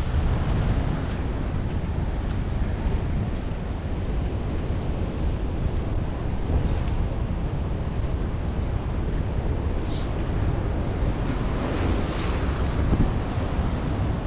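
Wind buffeting the microphone over a steady rush of surf and flooding water at a river mouth.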